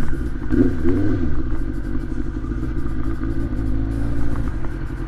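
Suzuki Bandit 600's inline-four engine running under way, heard from inside the rider's helmet with wind rumble. The engine note briefly rises and falls about a second in, then holds steady.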